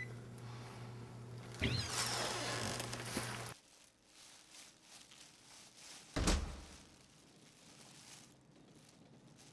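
A steady hum with about two seconds of scraping and rustling, then the hum cuts off abruptly and a single dull, low thud follows.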